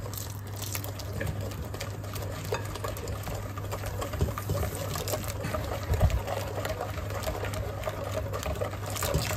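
Wire whisk beating an egg yolk, sugar and cornflour mixture in a glass bowl: a rapid, steady run of ticking and swishing strokes. Near the end a thin stream of hot milk begins pouring in as the custard base is tempered.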